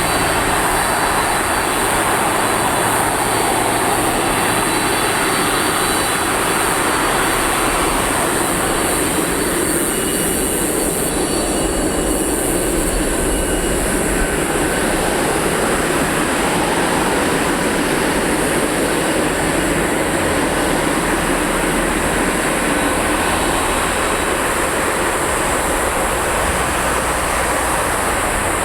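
Boeing 747-400's four jet engines at takeoff power, a steady loud rumble and roar as the airliner takes off.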